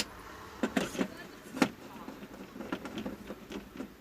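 Clicks and knocks of a TV circuit board and tools being handled: a few sharper knocks in the first two seconds, then a run of fainter ticks.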